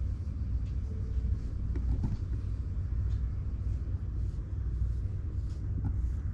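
Steady low wind rumble on the microphone, with faint, soft, irregular scratching strokes of a plastic cat-grooming file brushing a cat's fur.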